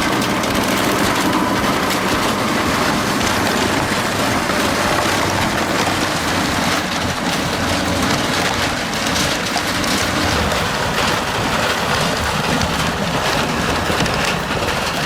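Rock crusher running under load: a steady heavy-engine rumble under a dense, continuous clatter and grinding of broken stone.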